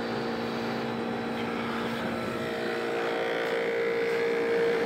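Vintage GM Frigidaire Prestige window air conditioner running with its Copeland compressor on: a steady mechanical hum over the rush of the fan's air, slightly louder near the end.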